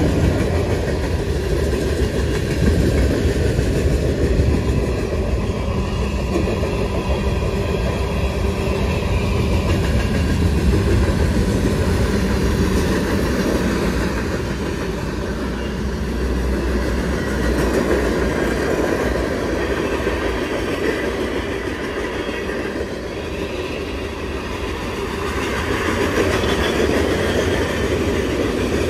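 Cars of a Union Pacific freight train rolling past on the rails, a steady rumble of wheels on track that lasts throughout.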